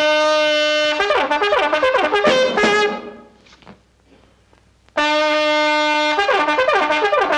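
Trumpet playing two brassy phrases, each a long held note that breaks into a quick run of notes, with a pause of about two seconds between them.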